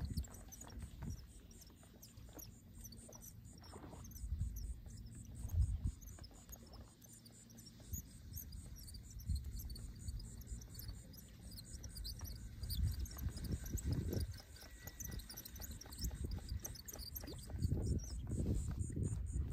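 Outdoor ambience on a kayak on open water: scattered low knocks and rumbles from the boat and the water, under a constant faint high crackle of tiny ticks.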